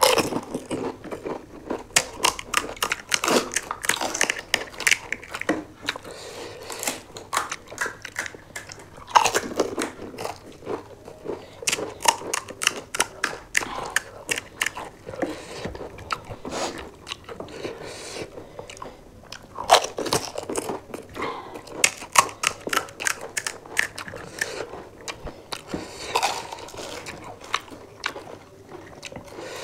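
Crisp, hollow fried panipuri shells cracking and crunching as two people bite into them and chew. The crunches come in quick runs, with a few louder bites standing out.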